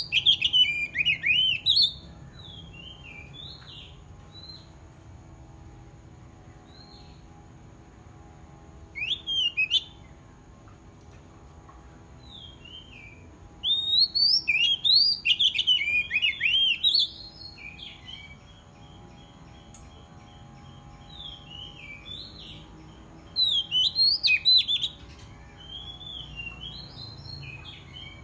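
Oriental magpie-robin singing its territorial challenge song: loud bursts of varied whistled notes that slide up and down, about nine seconds in, from about fourteen to seventeen seconds and around twenty-four seconds, with softer scattered notes and a quick run of repeated notes between.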